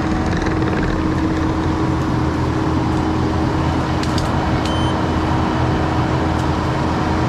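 Skid steer engine running steadily at working speed, with a constant hum over the engine drone, while it works a hydraulic tree shear.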